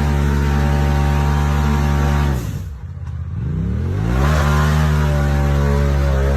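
Off-road vehicle's engine held at high revs under full throttle. About two and a half seconds in the revs drop sharply, then climb back up and hold high again.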